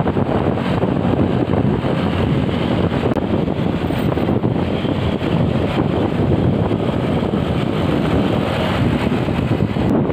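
Steady wind rush on the microphone of a moving vehicle, mixed with road and traffic noise.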